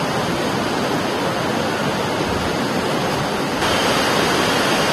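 Floodwater rushing and churning over the ground in a steady wash of noise. It steps up slightly louder a little over three and a half seconds in.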